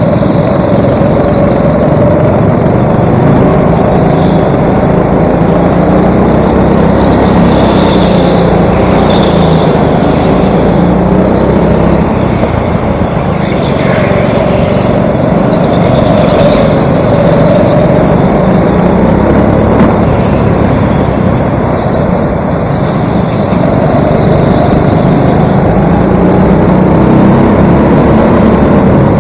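Go-kart engine running hard, heard from on board, its pitch rising and falling a little through the corners. A few brief higher squeals come midway.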